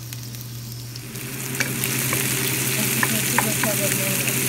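Sliced onion sizzling in hot oil in a nonstick frying pan, the sizzle growing louder about a second in, with the scrapes and taps of a spatula stirring it, over a steady low hum.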